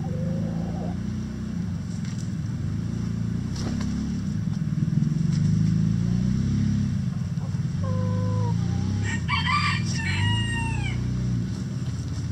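A rooster crowing once, about eight seconds in, for around three seconds, ending on a falling drawn-out note, over a steady low rumble in the coop.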